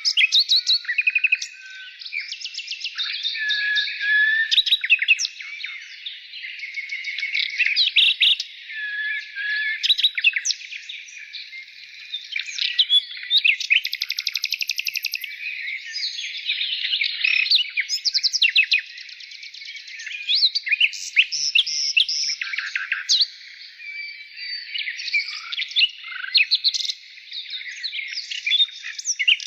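Several songbirds chirping and trilling at once in a continuous, overlapping chorus of short, high calls and rapid trills.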